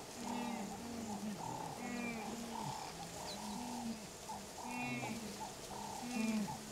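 A wildebeest herd calling: many short, low calls that overlap and follow one another in quick succession.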